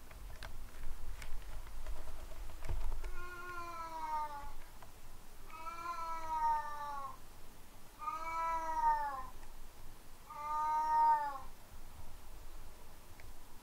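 Domestic cat meowing four times, long drawn-out meows roughly every two and a half seconds, each rising slightly and then falling in pitch.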